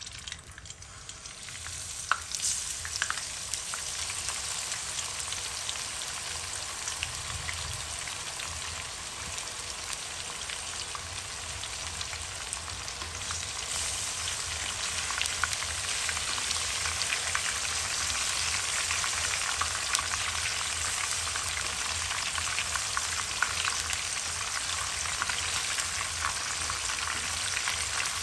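Whole scored fish sizzling in hot oil in a nonstick wok. The frying starts as the fish goes in, builds over the first couple of seconds with a few sharp pops, then settles into a steady, dense sizzle with constant crackling while hot oil is spooned over the fish. It grows a little louder from about halfway.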